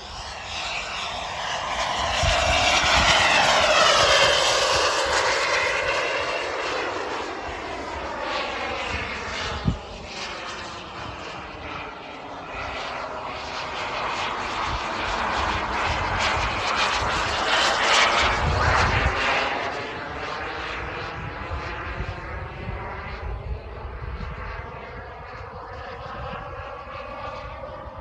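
Behotec 220 turbine of an RC F-4 Phantom model jet in flight: a steady jet rush that swells and fades with a sweeping whoosh as the model passes, loudest about four seconds in and again around eighteen seconds. A single sharp click about ten seconds in.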